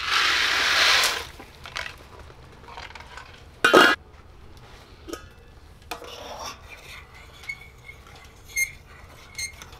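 Dry macaroni poured from its box into a stainless steel saucepan of boiling water, a loud rushing rattle for about a second. Nearly four seconds in, the lid clanks down onto the pot. Later a utensil stirs the pasta, clinking against the pot several times.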